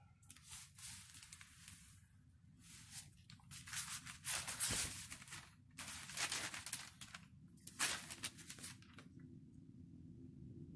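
Parchment paper rustling and crinkling in a series of bursts as an iron is slid over it and the sheets are handled, with a single knock about halfway through. A low steady hum runs underneath.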